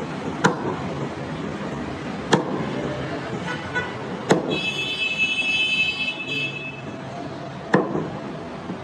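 Cleaver chopping goat meat on a wooden log chopping block: four sharp chops, spaced unevenly over steady background noise. A high buzzing tone sounds for about two seconds in the middle.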